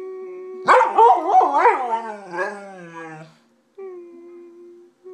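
Golden retriever howling: a loud, wavering howl whose pitch swoops up and down like speech, lasting about three seconds from under a second in. A quieter steady held tone sounds before it and again near the end.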